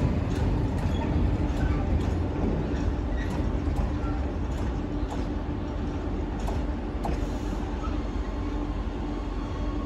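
Freight train of covered coil wagons rolling past, a couple of wheel clicks at the start, its low rumble slowly fading as the last wagon clears. A steady hum from a standing electric locomotive carries on underneath.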